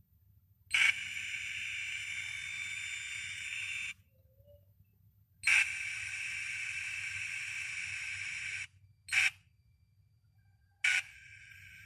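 Infinix Hot 9 Play loudspeaker playing sound that comes out buzzy and cracked, the sign of a faulty ringer speaker. It sounds in bursts that each start with a sharp click: two of about three seconds, a short one, and a quieter one starting near the end.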